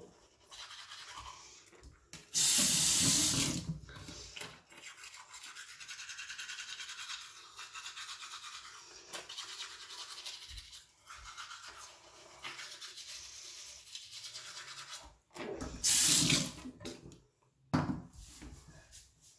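Teeth being brushed with a toothbrush: a scrubbing sound that comes and goes, broken twice by louder rushing bursts, about two seconds in and again near the end.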